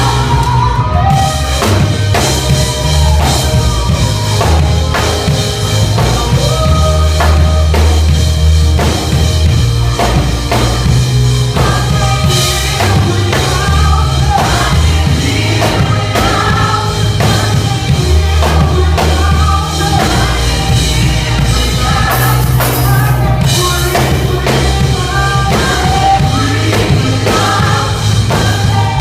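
Loud gospel music: singing voices over a full band with heavy bass and a drum kit playing a steady beat.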